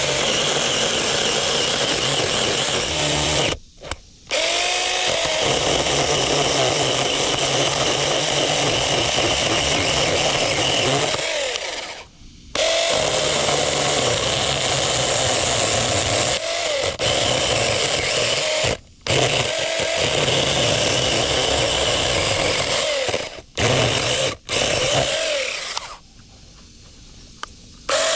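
Cordless mini chainsaw's electric motor running as the chain cuts into a wooden stump. It stops briefly several times and whines back up to speed after each pause. Near the end it stops for about two seconds before starting again.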